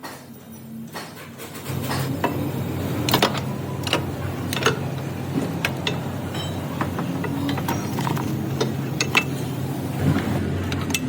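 A car engine running with a steady low hum that comes in about two seconds in, with irregular sharp clicks and knocks over it.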